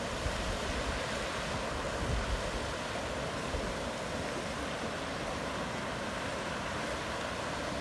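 Steady, even rush of moving water with no breaks.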